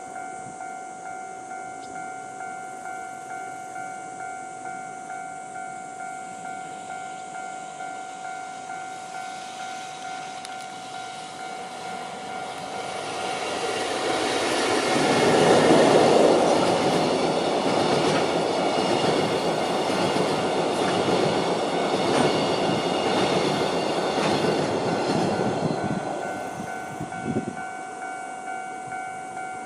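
An EF65 electric locomotive hauling empty Chiki 5400 rail-carrying flat wagons approaches and passes, loudest about 16 seconds in, with steady wheel clatter over the rail joints that fades after about 26 seconds. A level-crossing warning bell rings in a steady pulse throughout and stops just before the end.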